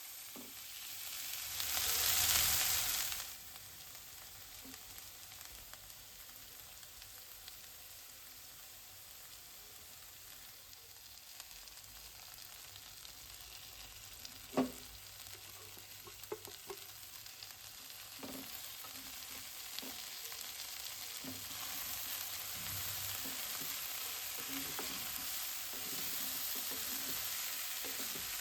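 Food frying and sizzling in a pan, with a loud surge of sizzling about two seconds in and the sizzle rising again later. A sharp click comes about halfway through, with a few lighter ones after it.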